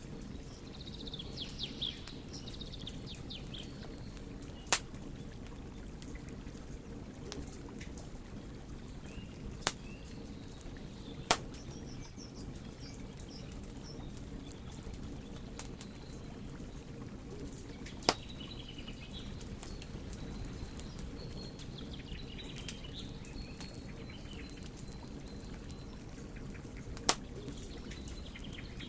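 Wood fire burning with a steady low rush and scattered small crackles, broken by a handful of sharp pops. Birds chirp faintly in the background, most clearly near the start.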